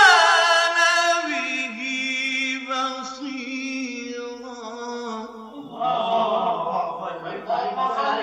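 A man's voice chanting Quran recitation in long, drawn-out melodic notes, the pitch sliding and then held on steady tones.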